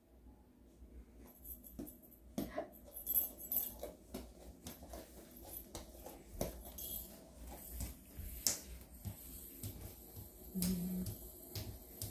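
Faint scattered taps and rustles of a baby crawling on a foam play mat and wooden floor, hands patting down, while a feathered cat-wand lure is dragged along the floor.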